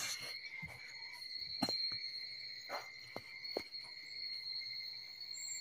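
A steady high-pitched trill, with several light knocks in the middle.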